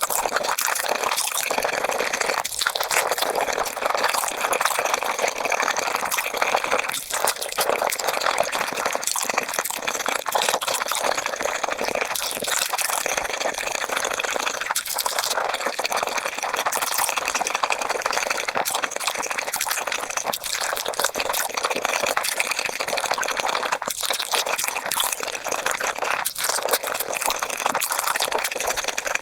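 Close-miked chewing of Korean-style spicy beef feet, played at five times speed, so the mouth sounds run together into a dense, continuous crackle with little low end.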